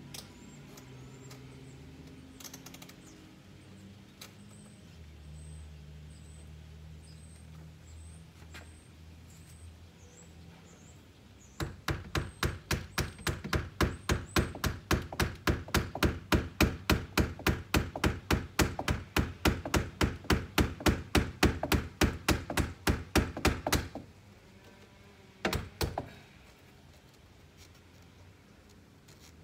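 Hammer driving nails into a window frame: a fast, even run of blows, about four a second, lasting around twelve seconds, followed shortly by two more blows. Before the hammering, a low steady hum and faint bird chirps.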